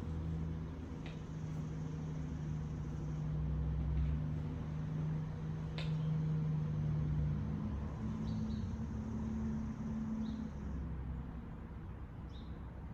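Low rumble and hum of a vehicle going by outside, swelling and then easing off, with a few short bird chirps over it.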